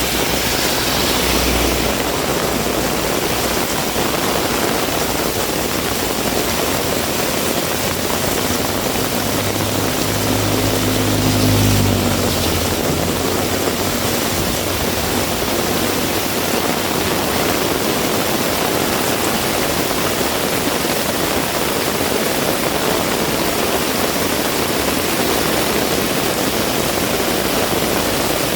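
Heavy rain falling with a steady hiss. A motor vehicle's engine passes by, rising about nine seconds in and loudest around twelve seconds in before fading.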